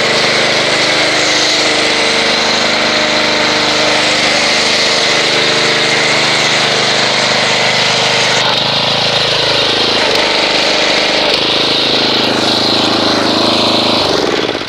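Pressure washer running while it sprays soap through an MTM foam cannon, a steady motor hum under a dense hiss of spray. A little past halfway the hiss thins and a tone slides down in pitch. The sound drops away at the very end.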